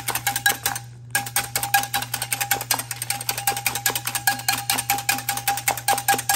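Wire whisk beating eggs in a white bowl, its wires tapping the bowl's sides in fast, even clicks several times a second, with a short pause about a second in.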